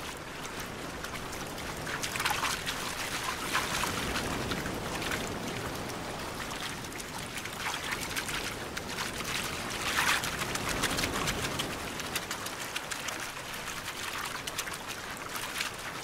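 Shallow surf washing up and draining back over sand covered with spawning Gulf grunion, full of small splashes and crackles as the fish wriggle in the wash. The wash swells about two seconds in and again around ten seconds in.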